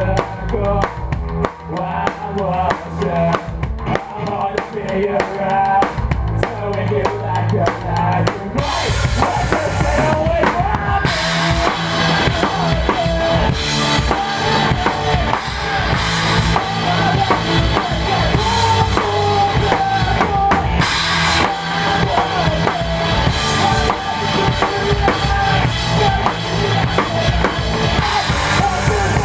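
Rock band playing live, with the drum kit up front: bass drum and snare under pitched guitar and bass lines. About eight seconds in the music gets fuller and louder, with a bright cymbal wash over the drums.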